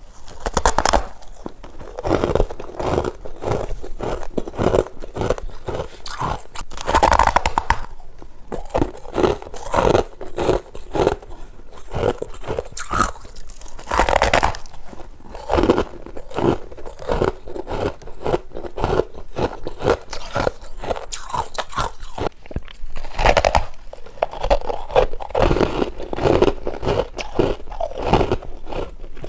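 Someone biting and chewing dry freezer ice in quick, crisp crunches, close to the microphone, with a few louder bites breaking off a mouthful about every seven to nine seconds.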